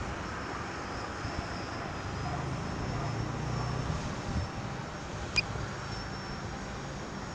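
Wind buffeting the microphone, a steady rushing noise, with a low rumble swelling in the middle and one sharp click about five seconds in.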